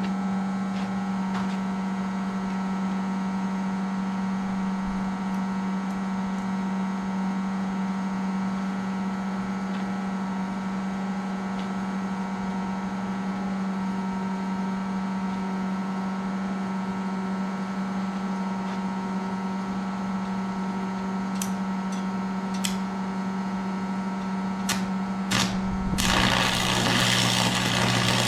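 Lincoln AC 225 stick welder humming steadily. Near the end come a few short crackles as the arc is struck, then the arc catches and crackles steadily while a tack weld goes onto 3/16-inch steel tube at 90 amps, a setting that proves a little too hot and blows through.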